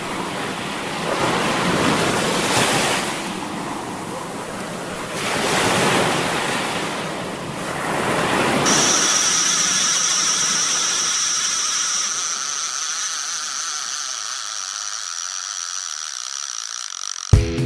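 Wind and sea surf washing, swelling and easing every few seconds. About nine seconds in, the deep part of the sound fades out and a steady high-pitched whine takes over. Music with drums starts at the very end.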